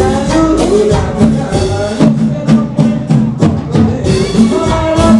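Loud dance music with a steady beat and percussion. The bass drops out for a couple of seconds in the middle while the percussion keeps going, then returns.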